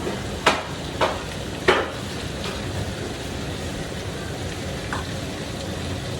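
Food frying in hot grease, a steady sizzle, with three sharp clicks of a utensil against the pan in the first two seconds and a fainter one near the end.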